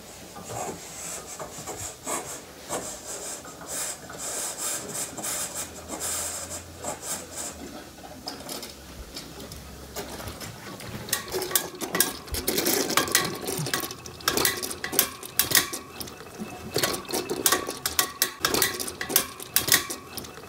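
Steam radiator air vent inside a recessed convector cabinet, hissing and spitting water. The hiss is steady for the first half, then from about halfway turns into rapid, irregular sharp spits and crackles. The radiator is flooded with trapped condensate, which the plumber puts down to its feed valve having been shut off while full of steam.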